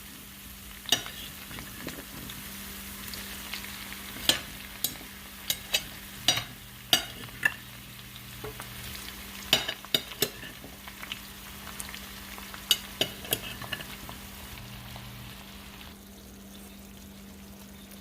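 Sliced bell peppers and onions sizzling in olive oil in a skillet, with a cooking utensil knocking and scraping against the pan at irregular intervals as they are stirred. A steady low hum runs underneath.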